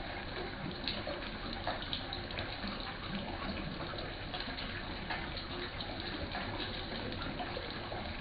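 Water running steadily, with small splashes and drips throughout.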